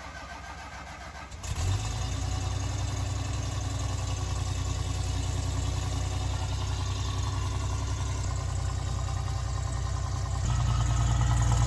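Toyota Land Cruiser's engine starting about a second and a half in, then idling steadily, a little louder near the end.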